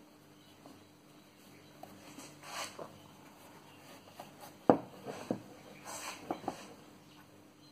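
Handling clicks and knocks from a backsaw's wooden handle and steel blade being turned over on a wooden workbench, the sharpest knock about halfway through, followed by a few lighter clicks. A faint steady hum runs underneath.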